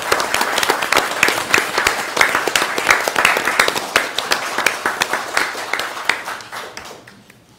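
Applause from a small group, many hands clapping together, dying away near the end.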